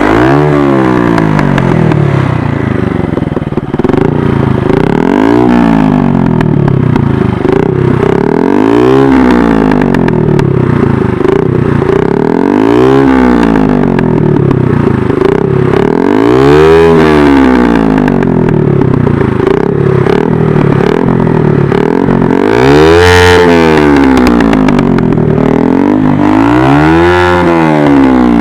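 Bajaj Pulsar 135LS single-cylinder four-stroke engine through a loud aftermarket free-flow exhaust, revved up and let back down over and over, about once every two seconds.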